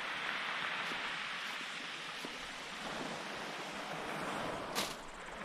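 Steady wash of waves breaking on the shore, swelling and easing a little, with a single sharp knock near the end.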